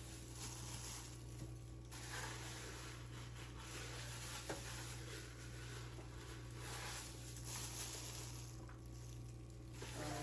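Faint rustling and squishing of plastic-gloved hands pressing ingredients into deboned raw pork, with one small click about four and a half seconds in, over a steady low hum.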